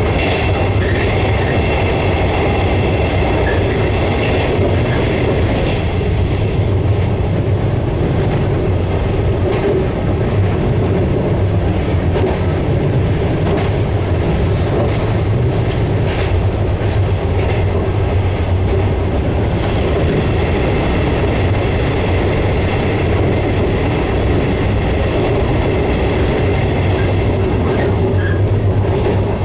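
JR West 115 series electric train running along the rails, heard from the front cab: a steady low hum and rumble of wheels on track, with occasional clicks and a high whine that fades out and comes back about twenty seconds in.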